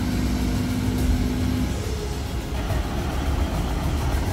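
Wheeled forestry skidder's diesel engine running with a continuous low rumble. A steady hum above it stops a little under two seconds in.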